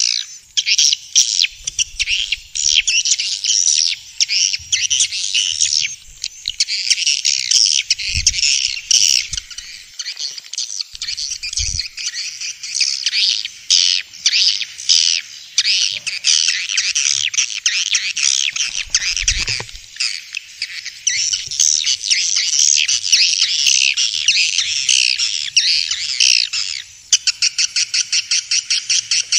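Swiftlets twittering in a dense, continuous chorus of fast, high chirps. Near the end it changes abruptly to a rapid, even run of clicking chirps, about eight a second.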